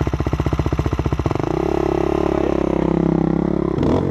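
Dirt bike engine running at low revs with an even chugging beat, then picking up to a steady higher pitch about a second in. A short knock near the end.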